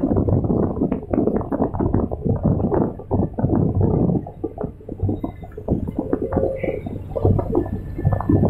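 Komatsu hydraulic excavator working, heard from the operator's cab: the diesel engine runs with a steady low hum under irregular clanks and knocks as the bucket scrapes soil along the slope and lifts it.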